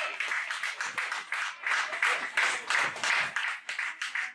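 A small group of football spectators clapping with quick, irregular handclaps, applauding a goal.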